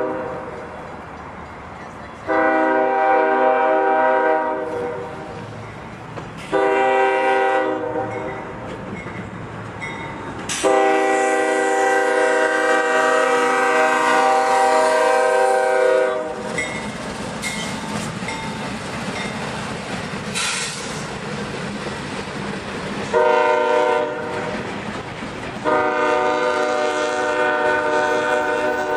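CSX freight locomotive's air horn sounding several blasts for the grade crossing: one long early, a long one of about five seconds as the locomotive reaches the crossing, then a short and a long one near the end. Between the blasts and after the locomotive passes, the intermodal container cars rumble and clickety-clack over the crossing.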